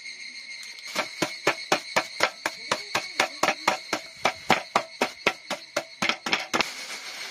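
Wooden stick pounding cucumbers through a plastic bag on a bamboo cutting board: a rapid run of dull knocks, about four to five a second, starting about a second in and stopping shortly before the end. A steady high insect trill runs underneath.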